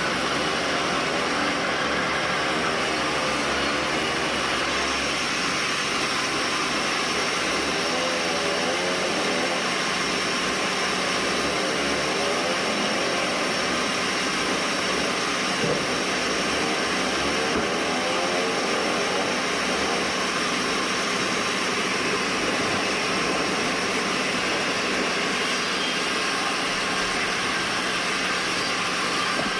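Band sawmill running with a steady machine noise that holds at an even level throughout.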